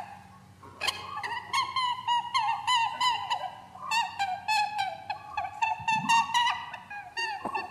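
Animal calls: rapid, overlapping squeaky chirps, several a second, picking up about a second in, over a faint steady low hum.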